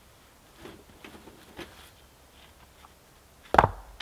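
Camping gear being handled while packing up: a few light rustles and clicks, then one sharp knock about three and a half seconds in.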